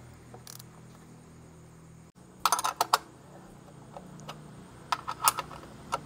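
Two short bursts of light metallic clinking and jangling, about two and a half seconds in and again about five seconds in, over a faint steady low hum.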